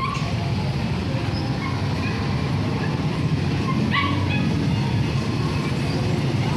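Steady low engine rumble of a running motor vehicle, with a few short faint higher chirps over it and one short sharp higher sound about four seconds in.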